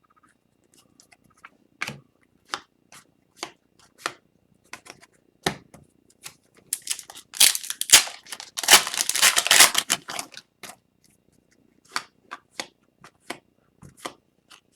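Hockey trading cards handled at close range: scattered clicks and snaps of cards being flicked and slid past one another, with a denser stretch of rustling and crackling in the middle.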